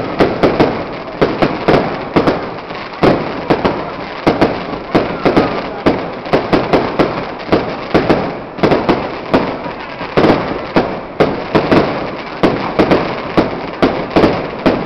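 Aerial fireworks display, shells bursting overhead in a fast, unbroken run of sharp bangs, several a second.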